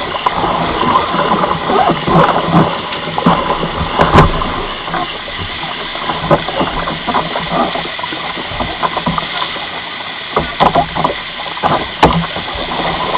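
Whitewater rapid rushing and churning around a kayak, with sharp splashes and knocks, clustered about two to four seconds in and again near the end.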